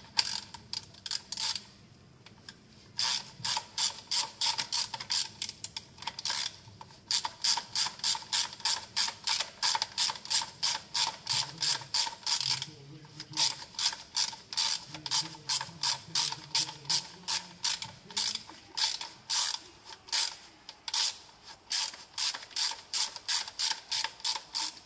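Hand ratchet wrench clicking as it turns a bolt, in quick even strokes of about three a second, with a few short pauses.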